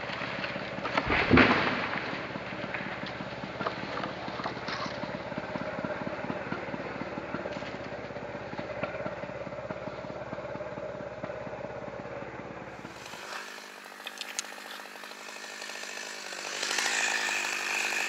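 Chainsaw engine running steadily, not cutting, with one loud knock about a second in. It stops abruptly after about thirteen seconds, leaving fainter outdoor noise.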